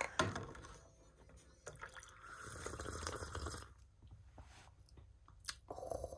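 Sipping and slurping hot tea from a cup cut from a plastic bottle. The longest slurp comes about two seconds in, with shorter sips near the end.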